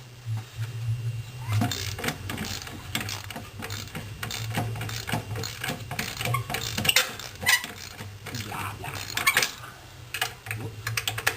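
Metal hand tools clicking and clinking against engine parts, with the irregular clicking of a socket ratchet working fasteners loose, over a steady low hum.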